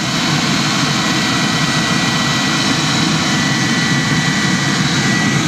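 Homemade oil-burning barrel forge, its burner fed by an electric air-mattress blower, running with a steady rushing roar of forced-air flame and a faint steady high whine. The waste-oil drip has just been turned on and the fire is taking hold, starting to sound like a jet engine.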